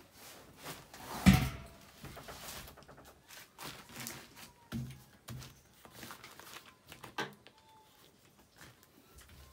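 Household items being handled in a storage chest. A loud knock comes about a second in, followed by several lighter knocks and rustling of plastic sheeting.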